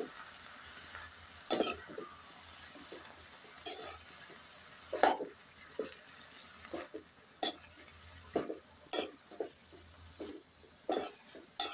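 Metal spoon scraping and knocking against a metal wok while shredded cabbage and potatoes are stirred, a sharp scrape every second or two. A faint frying hiss runs underneath.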